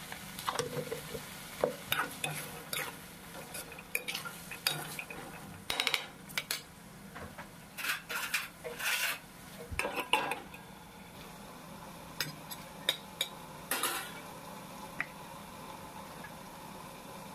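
Steel spatula scraping and clinking against a metal kadhai while stirring green peas as they fry, in irregular strokes that die down after about fourteen seconds.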